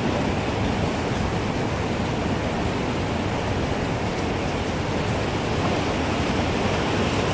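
Gusting wind, a steady rushing noise, with a few faint high ticks about halfway through.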